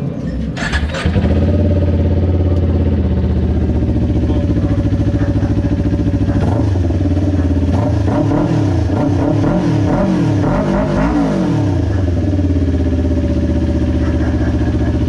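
Kawasaki Ninja 400's parallel-twin engine starting with a short clatter about a second in, then idling steadily. For a few seconds near the middle, a sound rises and falls in pitch over the idle.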